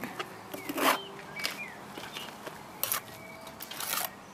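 A trowel scraping and slapping wet render onto the corner of a block wall, in several short, separate strokes.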